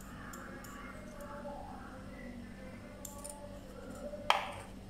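Quiet handling of a small steel cup over a steel mixing bowl as salt is tipped in, with a few faint metal clicks and then one sharp click about four seconds in.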